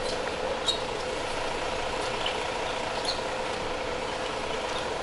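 Steady idling drone of a large diesel coach's engine, with a few brief high clicks scattered through it.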